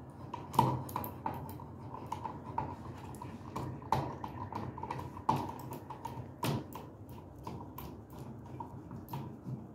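Irregular small clicks and taps of a screwdriver and fingers working the mounting screws of a duplex wall receptacle as it is fastened into its electrical box.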